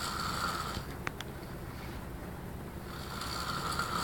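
A man snoring in his sleep. One snore fades out about a second in, and the next begins about three seconds in.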